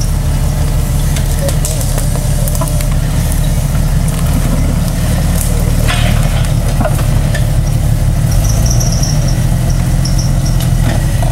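Off-road Jeep engine running low and steady at crawling speed on a steep dirt descent, with a few sharp clicks.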